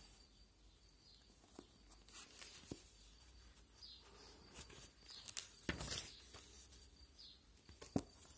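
Faint rustling of paper pages and book covers being handled, with scattered soft clicks, a few louder rustles past the middle and a sharp click near the end.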